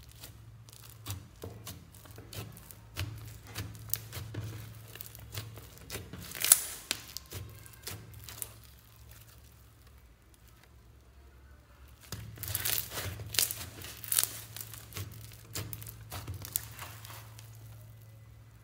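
Hands squeezing, pressing and stretching foam-bead slime (floam), giving rapid crackling and squishing pops in two busy spells with a quieter lull in the middle; the sharpest pop comes about six and a half seconds in.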